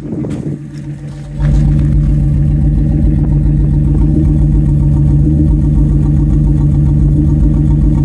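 Exhaust note of a Ford Excursion's 6.8-litre V10 idling, heard at the tailpipe and much louder from about a second and a half in. The idle is uneven, smooth for a moment and then rough, because one cylinder is misfiring from a failed ignition coil.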